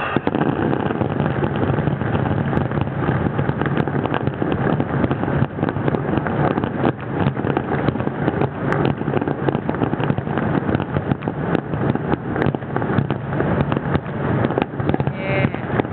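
Fireworks finale barrage: many aerial shells bursting in quick succession, the bangs merging into a continuous rumble with crackling.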